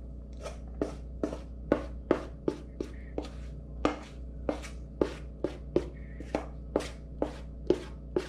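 A spoon clicking repeatedly against the mixing bowl as muffin batter is scooped out and spooned into cases, about two sharp clicks a second at an uneven pace, over a low steady hum.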